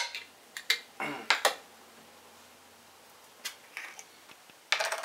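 Clicks and light knocks from handling a small plastic yeast vial and a glass mason jar, with a louder clatter near the end.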